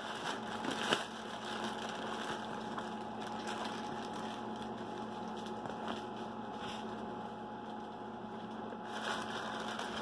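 Plastic packaging rustling and crinkling as a poly mailer is handled and pulled out of a plastic bag, with a small knock about a second in, over a steady low background hum.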